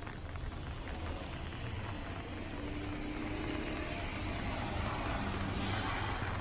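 Steady hiss of rain with the low rumble of a passing vehicle, growing louder toward the end.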